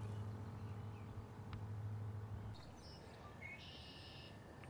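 A steady low hum that cuts off a little past halfway, then a bird calling briefly near the end.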